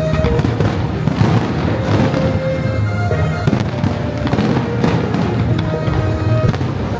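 Fireworks display going off continuously with dense crackling, over loud music played in sync with the show.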